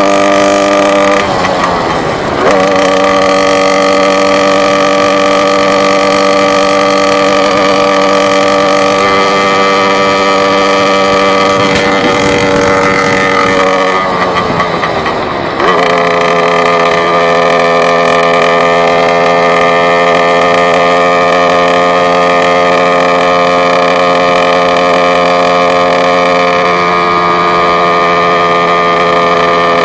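Motorcycle engine running while being ridden, picked up from a phone in the rider's pocket. Its note holds steady for long stretches, with two spells, about a second in and again around twelve to sixteen seconds in, where the pitch wavers and drops before settling to a lower steady note.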